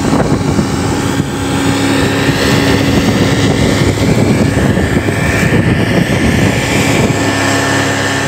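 Outboard motor driving a small open fishing boat at speed: a steady engine drone with wind and rushing water over it. The engine's note weakens about a second in and comes back strongly near the end.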